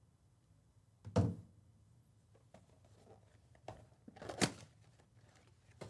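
Cardboard trading-card box being handled: one sharp thump about a second in, then light taps and knocks, with a louder cluster of knocks a little past four seconds.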